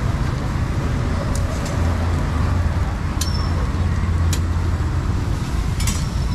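Street traffic: a steady low engine hum of passing or idling road vehicles, with a few sharp clicks.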